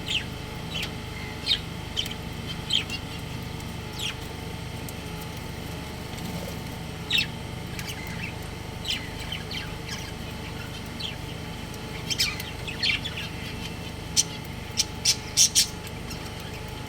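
Budgerigars chirping: short, sharp chirps scattered through, coming in a quick run near the end, over a steady low hum.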